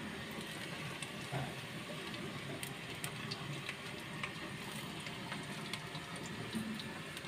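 Sliced onions frying in oil in a pressure cooker, sizzling steadily as a spatula stirs them, with a few faint scrapes and ticks.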